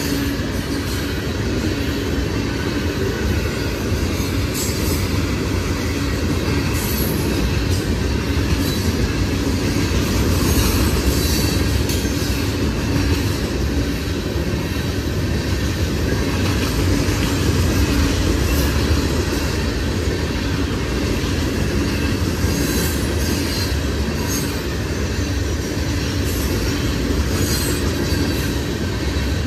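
A train rolling steadily past for the whole stretch, its wheels rumbling on the rails, with short high wheel squeals now and then.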